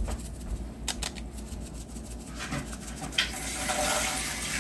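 A few light clicks and rustles from a small plastic bag as dried bonito flakes are shaken out of it, then from about three seconds in a steady hiss.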